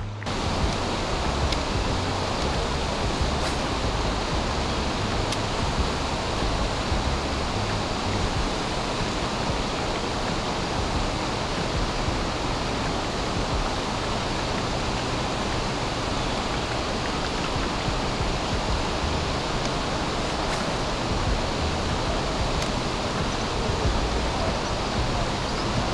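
Wind buffeting the microphone: a steady rushing hiss with uneven low rumbles.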